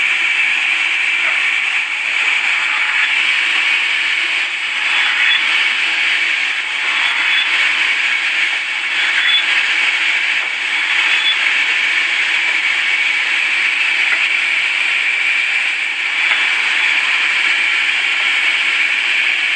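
Sawmill saw cutting through wood: a steady, hissing whine with no breaks.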